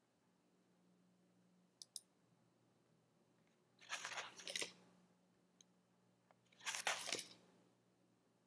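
Two faint clicks, then two short scratchy rustles about a second long and three seconds apart, from a computer mouse being clicked and handled on a desk while the pages of a PDF are advanced. A faint low steady hum lies under it.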